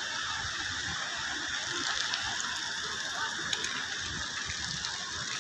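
Steady hiss of water on a hail-covered road, with scattered light ticks.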